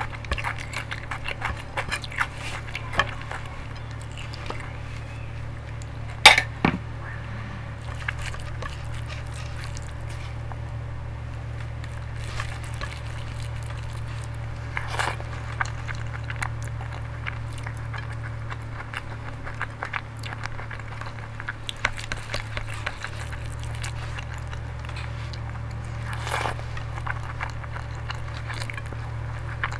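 Fingers mixing and squeezing rice with dal on a plate: soft wet squishing with many small clicks of fingers on the plate, and one sharp louder click about six seconds in. A steady low hum runs underneath.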